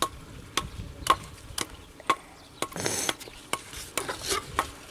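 A run of sharp clicks, about two a second, with a short scraping rustle about three seconds in.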